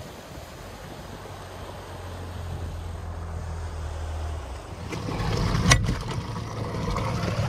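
Jon boat's outboard motor running with a steady low hum. About five seconds in, a louder rush of water and wind comes in, with a single sharp knock about a second later.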